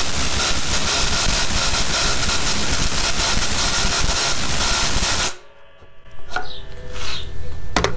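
Skil and Milwaukee brushless impact drivers hammering lag screws into a wooden beam, a loud, rapid, steady clatter of impacts. It cuts off abruptly about five seconds in as the lags are driven home, leaving a few light clicks.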